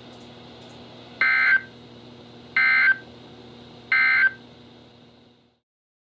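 Three short bursts of Emergency Alert System SAME data tones from a NOAA Weather Radio broadcast: the end-of-message code that closes the warning. Each burst lasts about a third of a second, about 1.4 s apart, over a faint hiss and hum that cuts off about five and a half seconds in.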